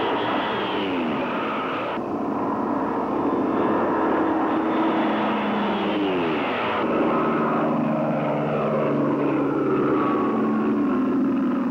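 Bell P-39 Airacobra fighter's Allison V-12 engine and propeller running at full power as the plane passes low overhead. The engine note falls in pitch as it goes by, twice, and the sound changes abruptly in between.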